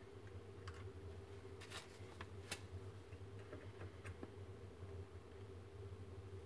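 Hot glue gun being worked over a melodeon's bass pallets: a few faint, scattered clicks and ticks from the trigger and nozzle against the wooden mechanism, one sharper click about two and a half seconds in, over a steady low hum.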